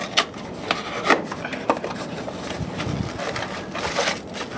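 Paper and plastic packaging handled and opened with gloved hands to take out a replacement compressor loader piston: rustling and crinkling, with several sharp crackles.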